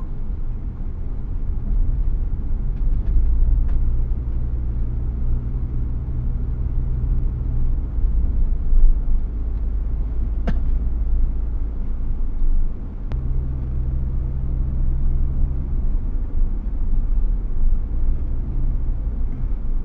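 Ambulance engine and road rumble heard from inside the cab while driving: a steady low drone, its engine hum easing for a few seconds midway and then returning.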